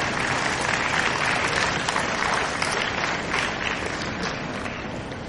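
Audience applauding, swelling at the start and thinning out toward the end.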